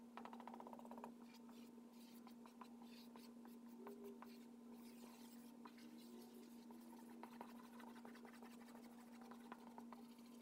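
Faint scratching strokes of a marker pen drawing on flip-chart paper, short quick strokes scattered throughout, over a steady hum.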